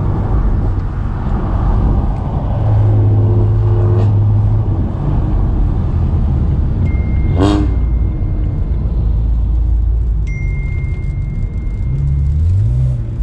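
Car driving with its engine running steadily and road noise. A sharp click comes about four seconds in, and a brief sweeping sound about halfway. A thin high steady tone comes twice in the second half, and near the end the engine note rises.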